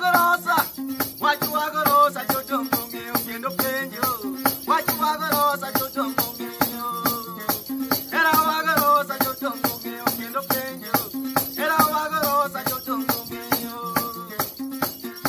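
Luo nyatiti lyre plucked in a repeating pattern, with a man singing in phrases of a few seconds over it and a fast, steady percussive beat throughout.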